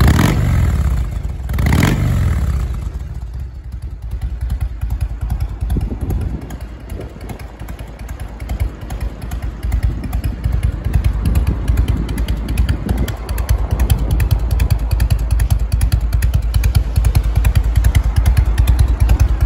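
1997 Harley-Davidson Fat Boy's 1340 cc Evolution V-twin running on its stock mufflers: a throttle blip about two seconds in that falls back to a loping idle, which grows louder about halfway through.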